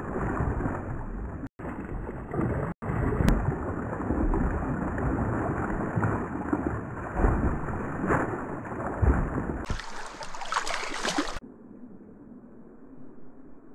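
Large hooked wild brown trout thrashing and splashing at the surface of a small creek: loud, churning splashing water, cutting out for an instant twice in the first three seconds. About ten seconds in, a harsher, hissier rush lasts a second or so, then the sound drops to a quiet, low murmur as the fish lies still in the shallows.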